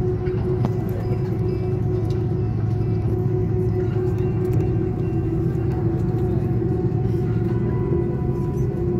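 Airbus A330-200 jet engines idling, heard from inside the cabin as a steady low hum with a steady whine on top; no spool-up yet.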